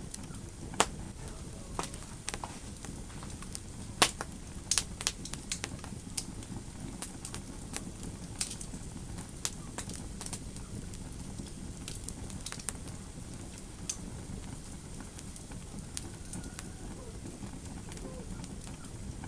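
Wood fire crackling in a fireplace: a steady low rush of flame noise with frequent sharp pops and snaps, the loudest about a second in and about four seconds in.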